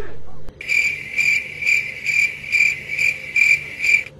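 Cricket chirping sound effect, an even run of short high chirps about two a second, starting about half a second in and cutting off just before the end; the stock 'crickets' cue for an awkward silence after a punchline.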